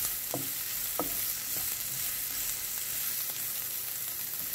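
Chopped onion and garlic sizzling steadily in olive oil in a nonstick frying pan as they are sautéed toward translucent. A wooden spatula stirs them, scraping the pan twice in the first second or so.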